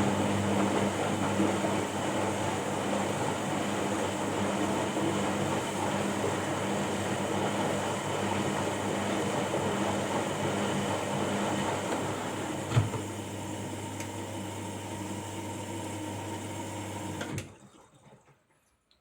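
Washing machine running: a steady motor hum under a churning rush, with a single knock about two-thirds of the way through. The sound cuts off suddenly near the end.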